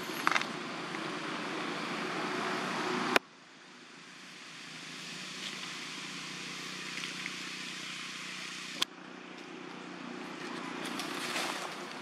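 Steady outdoor background noise with a low hum, broken by two abrupt jumps in level. Near the end come a few crackles of footsteps in dry leaf litter.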